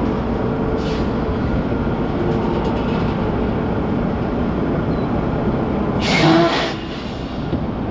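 Heavy-haul truck and loaded trailer rolling at low speed, picked up by a camera mounted on the truck: a steady rumble with rattling. A brief louder hiss with a squeal in it comes about six seconds in.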